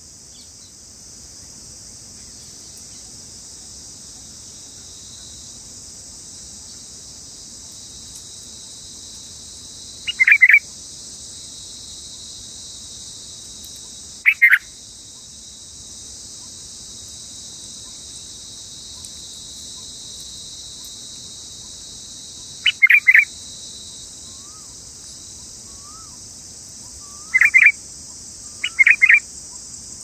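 Bulbul chirps at the nest: short, sharp calls in five brief bursts a few seconds apart, some doubled. Under them runs a steady high-pitched insect drone.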